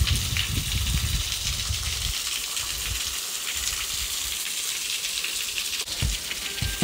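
Water from a small waterfall coming down as a fine spray of droplets, a steady rain-like hiss. A low rumble on the microphone fades out about two seconds in.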